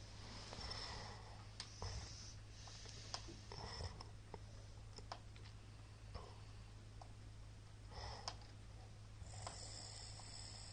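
A lull between snores from a sleeping man: faint soft breaths with a scattering of small sharp clicks over a steady low hum.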